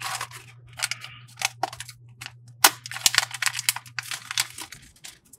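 Black plastic foil wrapper crinkling and crackling as it is torn open and handled, in sharp irregular crackles.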